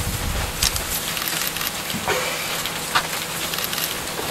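Dry brush and twigs crackling, with a few sharp snaps, as African elephants browse in the bushes, over a steady hiss.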